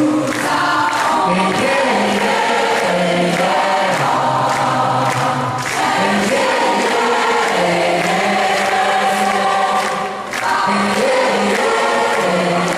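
A large choir singing a sustained, chant-like melody over a moving bass line, with a steady percussive beat underneath.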